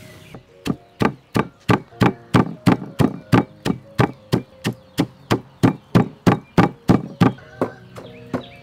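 Pestle pounding salt and chili in a stone mortar: steady strikes about three a second, starting about half a second in and getting softer near the end.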